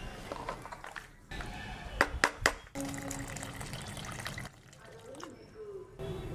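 A wooden spatula stirs thick rice porridge in an aluminium pot, with a few sharp knocks against the pot about two seconds in. Then water is poured into the pot.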